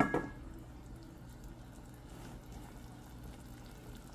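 A pot of shrimp broth bubbling quietly on the stove. It opens with one sharp clink that rings briefly.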